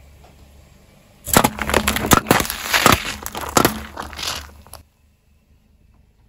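Brittle objects cracking and crunching as they are crushed under a car tyre: a dense, loud run of snaps and crackles lasting about three and a half seconds, which stops abruptly.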